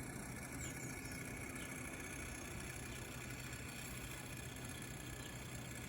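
Small electric motor of a toy aeroplane spinning its propeller, a steady whirr with a low hum.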